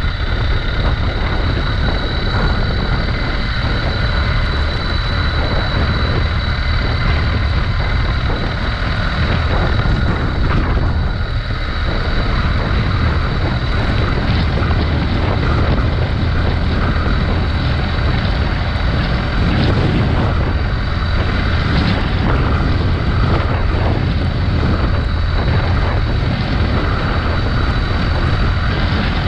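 Motorcycle riding at speed on a dirt road: steady engine drone under heavy wind noise on the microphone.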